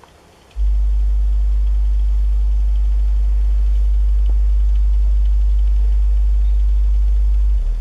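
Polk PSW10 subwoofer playing a steady, loud low-frequency test tone of about 50 Hz that starts about half a second in and steps down to a lower tone near the end. This is part of a test going from 50 down to 25 Hz to check for port chuffing after the port's metal stopper has been removed.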